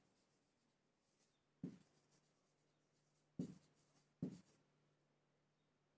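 Marker pen writing on a whiteboard: faint scratchy strokes with three sharper taps, one near the second mark and two close together past the middle.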